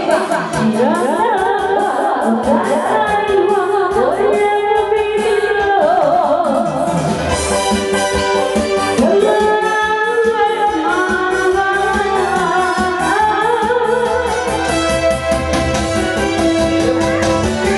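Karaoke singing: a voice singing through a microphone over a backing track with a steady beat.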